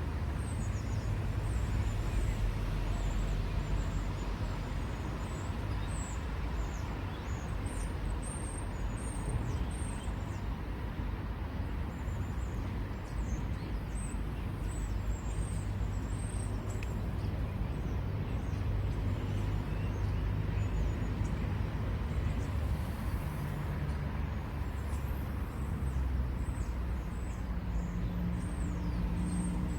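Steady low rumble of road traffic. A vehicle engine drone grows louder near the end.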